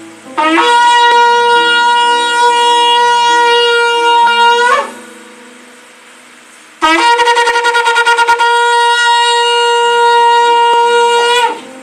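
Shofar sounded in two long, steady blasts of about four seconds each. The second blast opens with a rapid flutter before settling into the held note.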